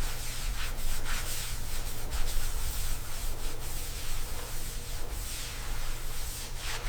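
Sanding: steady abrasive rubbing against a surface, with faint irregular strokes.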